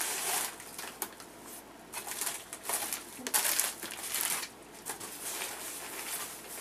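Plastic mailing bag crinkling and rustling as it is handled and pulled open, irregular and on and off.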